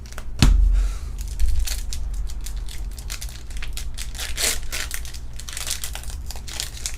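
Foil booster-pack wrappers crinkling and tearing as Pokémon card packs are opened and handled. A low thump comes about half a second in, and another at about a second and a half.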